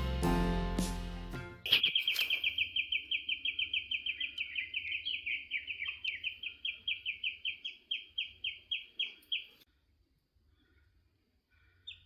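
Guitar music fades out in the first two seconds. Then a bird repeats one high, quick call note about five times a second for some eight seconds, stopping suddenly.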